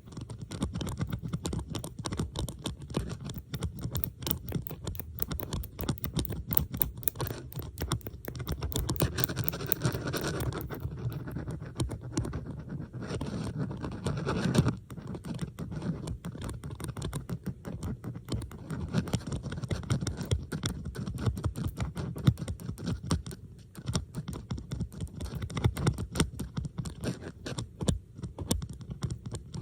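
Small metal bobby pins being handled, clicking and scratching in rapid, dense taps. Several recordings are layered over each other. It turns thicker and scratchier for a few seconds partway through.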